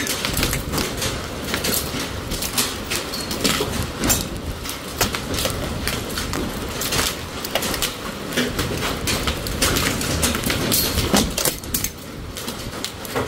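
Hail coming down hard: a dense, irregular clatter of hailstones striking, with sharper, louder cracks among them over a steady low rush.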